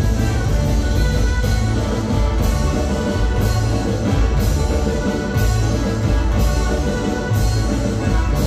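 Live band playing banda-style dance music, with heavy bass and a steady beat marked by a cymbal-like hit about once a second.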